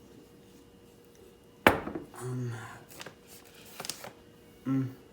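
Kitchen utensils and containers being handled on a counter: one sharp knock of something set down, then a few light clicks and clinks.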